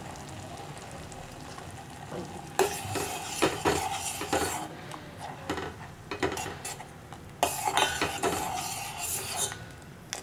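Steel spoon stirring jaggery syrup in a stainless-steel pan. About two and a half seconds in, irregular scrapes and clinks of spoon on metal begin and carry on almost to the end.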